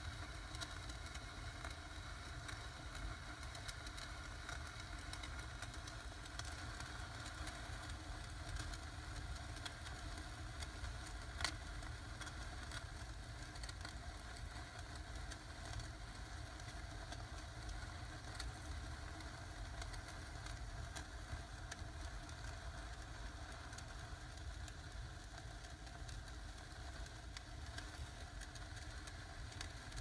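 Indoor fountain fireworks spraying sparks: a steady hiss with faint scattered crackles over a low rumble, and one sharp crack about eleven seconds in.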